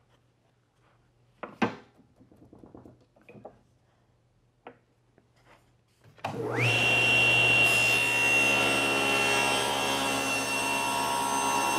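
A few light knocks of a board being positioned on a saw table, then about six seconds in a SawStop table saw switches on, its motor whine rising quickly to a steady high pitch. The spinning blade then cuts through the board.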